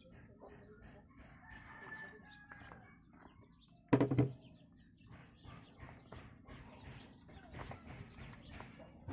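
Hands placing sliced eggplant pieces over fish in an aluminium pan, with soft handling clicks and rustles and one brief loud thump about four seconds in. Chickens cluck in the background.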